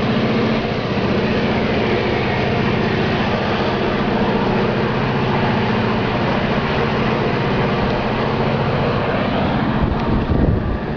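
Diesel locomotives working hard to haul a heavy loaded train upgrade: a loud, steady, deep engine drone that swells a little near the end.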